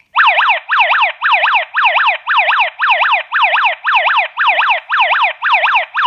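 ENKLOV wireless alarm hub's built-in siren wailing in fast falling sweeps, about three a second, because a zone 2 sensor has tripped the armed system.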